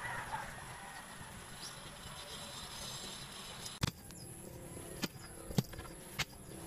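A long digging bar driven into stony garden soil, giving four sharp knocks in the second half, roughly every half second to second. Before that only soft soil sounds from hands working the bed.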